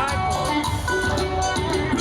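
Upbeat music with a steady drum beat and sustained melody notes.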